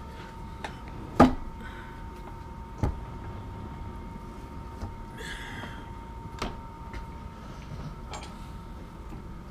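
Steel tooling being handled at a stopped lathe: a few sharp metal knocks and clinks, the loudest about a second in and another near three seconds, with lighter ticks after. A faint steady hum runs underneath.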